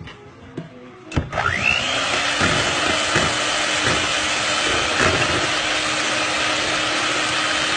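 Electric hand mixer switched on about a second in, its whine rising as the motor gets up to speed, then running steadily with its beaters whisking cake batter in a glass bowl. It begins to slow right at the end.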